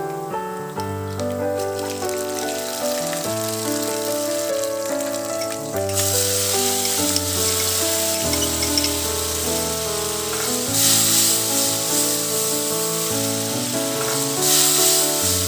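Oil frying in a pan sizzles faintly under background music. About six seconds in the sizzle turns loud and stays loud as wet mint paste goes into the hot oil, swelling twice more near the end.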